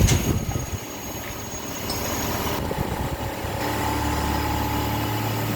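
CNC lathe running in a machine shop, with a sharp clank right at the start. About three and a half seconds in, a steady motor hum and a high whine set in.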